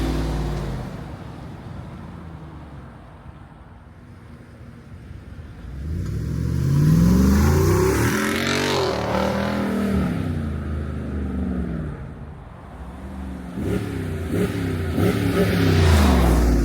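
2023 Jeep Wrangler 392's 6.4-litre Hemi V8 exhaust in drive-bys. One pass fades away at the start, another swells and goes by about eight to nine seconds in, and near the end the engine revs up hard and loud as it approaches again.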